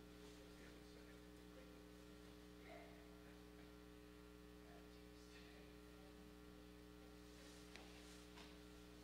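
Near silence with a faint steady electrical hum, and a few faint ticks near the end.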